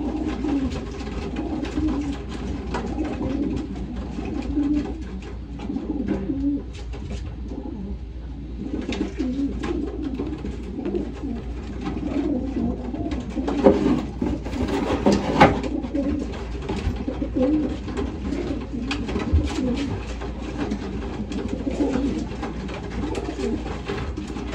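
Racing pigeons cooing continuously in a loft, the coos overlapping in a steady wavering chorus, with scattered light clicks and rustles. A louder burst of scuffling noise comes about fourteen seconds in.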